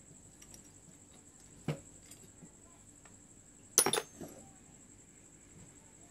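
Metal knocks and clinks from a car alternator being handled and turned over: one knock a little under two seconds in, then a short, sharper rattling clatter a couple of seconds later.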